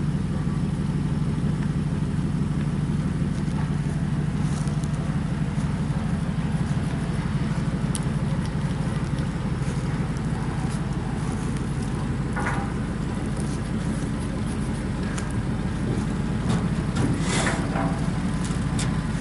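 Pickup truck engine idling steadily, its exhaust piped into an emptied propane tank to purge leftover fumes, with a few brief clicks and short hisses over the top.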